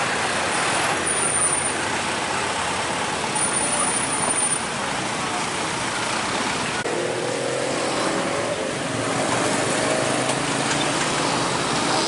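Road traffic of heavy trucks and motorcycles crossing a railway level crossing: a steady mix of engine and road noise. About seven seconds in, an engine revs up, rising in pitch as a vehicle pulls away.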